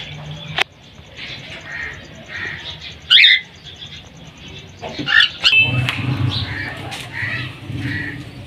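Mixed bird calls: repeated short chirps, a loud squawk about three seconds in, and a low pulsing call from about five seconds.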